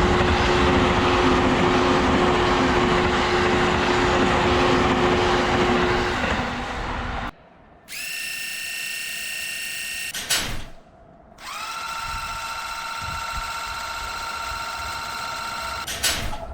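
A train running past with a loud rushing rumble and a steady hum, cutting off abruptly about seven seconds in. After a brief silence comes a steady, multi-pitched electric whine that quickly rises to pitch. A click and a short gap break it, then it starts again and holds.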